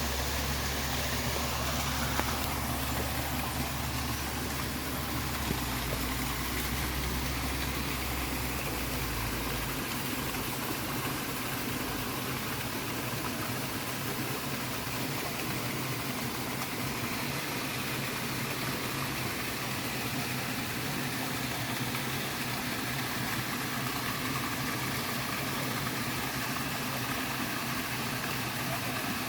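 Waterfall rushing steadily, a constant hiss of falling water. A low rumble underneath drops away about ten seconds in.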